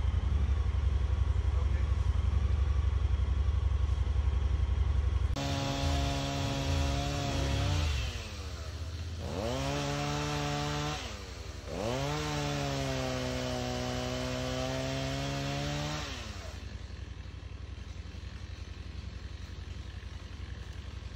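An engine with a low rumble for the first five seconds, then it revs up and holds a steady pitch. It sags and climbs back twice, about 9 and 12 seconds in, and winds down about 16 seconds in.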